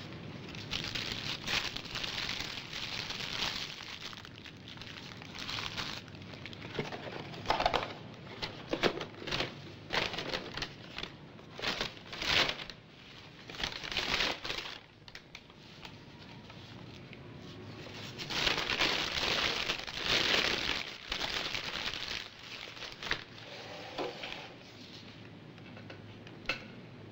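Paper hamburger wrappers, napkins and a paper fast-food bag crumpled and rustled by hand as the leftovers are packed away, in irregular bursts of crinkling. It thins out to a few small clicks near the end.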